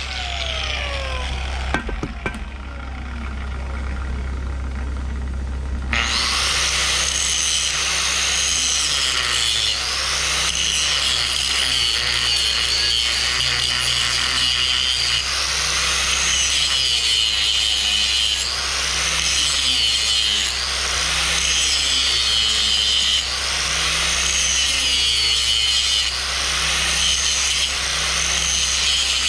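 Angle grinder working on the steel of a backhoe dipper stick. It starts suddenly about six seconds in, after a motor winding down, and its pitch rises and falls every couple of seconds as it is pressed and eased along the weld groove.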